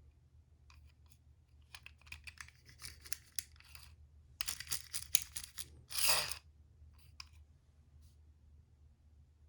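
Light clicking and clattering of small toy cars being handled against cardboard: two bunches of quick clicks, then a short scraping rush about six seconds in. No siren is sounding.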